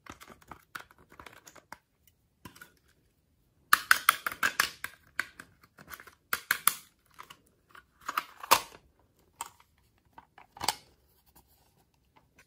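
A small tool scraping and crumbling pressed powder makeup out of a plastic makeup palette: irregular scratchy crackling in bursts, faint at first and loudest about four seconds in, with a single sharp click later on.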